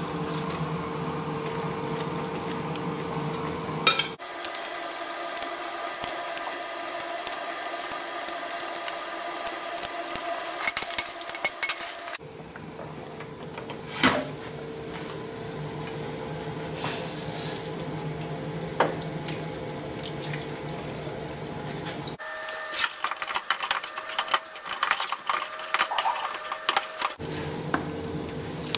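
Kitchen clatter of a metal saucepan and utensils: knocks, clinks and scraping in several short takes over a steady background hum, with one louder knock about 14 seconds in as the pot of boiled potatoes is handled on the gas hob. It ends with a potato masher working in the pot.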